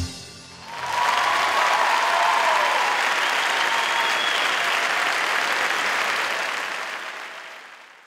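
Theatre audience applauding at the end of a dance number, the clapping swelling up within a second and holding steady before fading out over the last two seconds.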